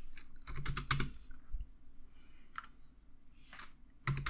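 Computer keyboard keystrokes and mouse clicks: a few scattered clicks through the middle, then a quicker run of clicks near the end.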